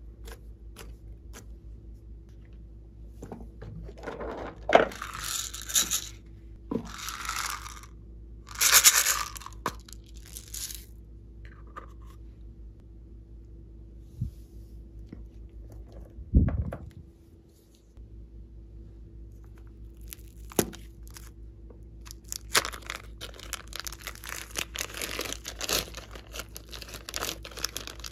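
Hands handling slime and plastic packaging. There are several loud rustling bursts in the first half as small foam beads go into the slime, and a single low thud in the middle. In the last third a clear plastic piping bag crinkles and crackles densely as clay is squeezed out of it. A faint steady hum runs underneath.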